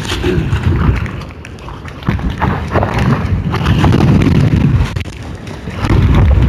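Gale-force wind buffeting the microphone with a heavy rumble in gusts. It eases about a second in, surges again around two seconds in, drops near five seconds and picks up again near the end.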